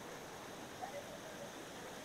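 Faint, steady rush of water from a small garden waterfall.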